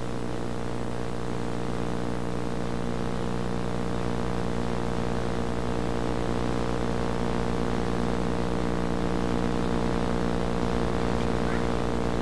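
Steady droning hum with many evenly spaced overtones and a fast low pulse underneath, swelling slightly.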